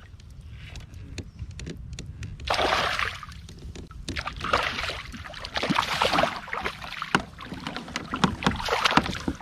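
Water splashing and sloshing in irregular bursts as a hooked bass is fought beside a kayak, with short clicks and knocks among the splashes.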